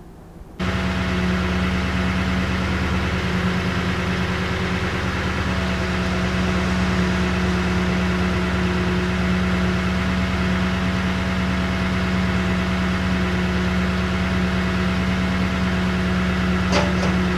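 Toyota Tundra pickup's engine idling steadily, starting suddenly about half a second in, with a few light clicks near the end.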